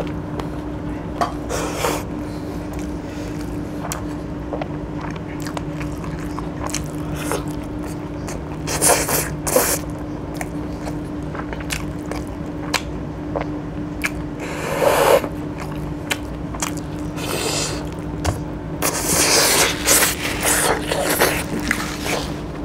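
Close-up eating sounds of a man chewing and biting into chicken curry and rice eaten by hand: wet chewing, lip smacks and clicks, with louder bursts of chewing about nine seconds in, around fifteen seconds and again near the end. A steady low hum runs underneath.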